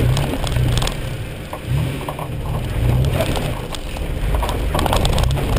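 Off-road 4WD engine revving in repeated surges while crawling over rock, with short knocks and scrapes from tyres and body on the rocks.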